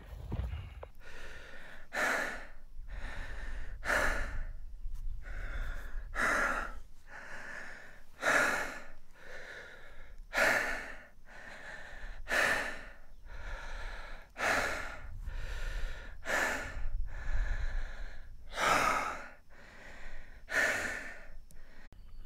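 A man breathing hard and fast after an uphill hike, a heavy breath about once a second with the louder ones about every two seconds.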